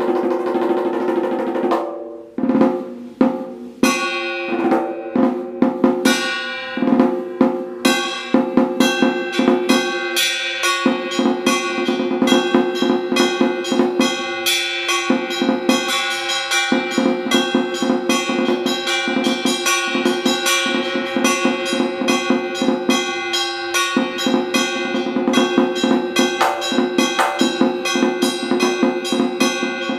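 Large Vietnamese battle drum (trống chiến) beaten with two wooden sticks: scattered strokes for the first few seconds, then a fast, dense, continuous rhythm with the hide head ringing under the strokes.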